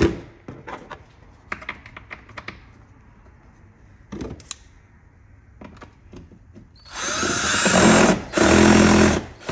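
Cordless drill driving a screw into a plastic engine-bay cover. The motor runs in two bursts near the end, with a short stop between. Before that there are light clicks and taps as the drill and screw are handled.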